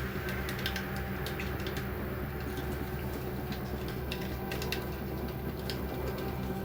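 LG 8.0 kg washing machine running mid-cycle with a load of work clothes: a steady low motor hum, with irregular light clicks and patters from the tumbling load and water.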